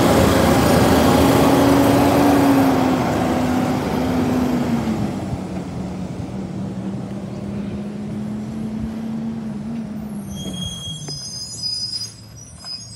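Republic Services recycling truck's diesel engine running as the truck drives off, loud close by and then fading after about four seconds as it moves away. A few brief high squeaks come near the end.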